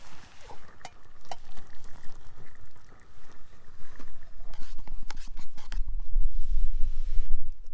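Scattered clinks and scrapes of a utensil against a camp pot or mug. Wind buffets the microphone with a heavy rumble for the last couple of seconds.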